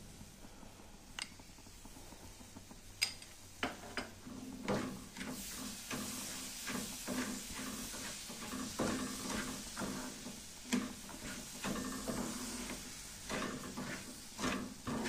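Wooden spatula stirring and scraping a dry, crumbly mixture of roasted semolina, sugar and coconut around a steel kadhai, with irregular scrapes and knocks against the pan. It starts as a few light clicks while cream is spooned in, then becomes steady mixing from about four seconds in.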